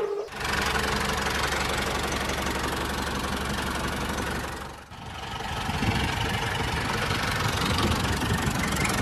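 Tractor engine running steadily with a knocking chug. It dips briefly about halfway through, then picks up again.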